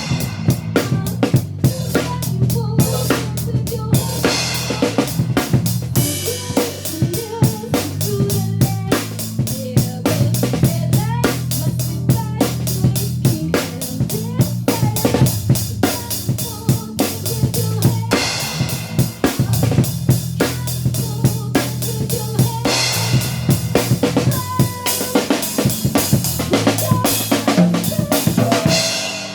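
Band music from a demo recording: a drum kit keeps a steady beat with bass drum, snare and rimshots over a held low bass line and a melodic line above, and the music fades out at the very end.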